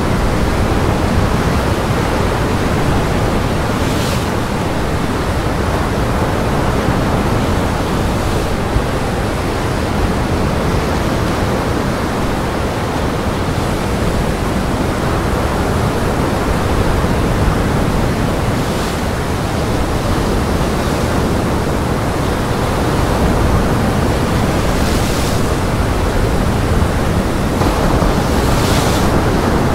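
A steady, even rush of strong wind and breaking surf, with a few brief brighter hisses.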